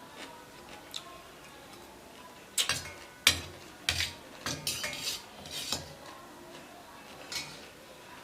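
Cutlery clinking and scraping against a plate of fried rice and noodles: scattered short clinks, most of them in a cluster between about two and a half and six seconds in.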